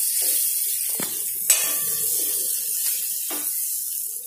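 Sliced onions and chilli powder sizzling in oil in a metal pan, stirred with a metal spoon that scrapes and knocks against the pan a few times, the loudest knock about a second and a half in.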